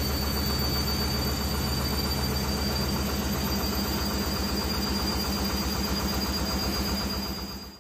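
Beko WRE6512XWWE washing machine on its spin cycle: a loud, steady whir with a fast, even low throb and a thin high whine. The owner reports that this machine vibrates heavily on spin, even after its shock absorbers, drum and feet were replaced.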